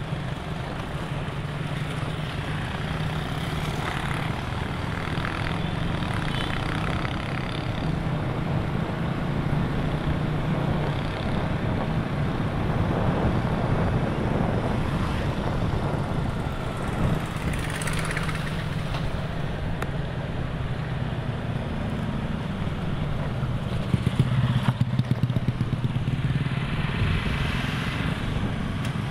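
A motorcycle engine running steadily at riding speed, heard from the bike with road and wind noise over the microphone. A few sharp knocks come about three-quarters of the way through.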